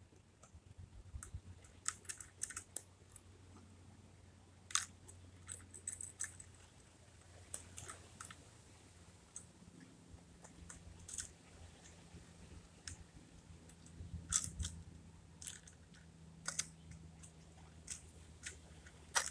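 Scattered sharp plastic clicks and rattles from a toy rear-loader garbage truck being handled and worked by hand, over a faint low steady hum.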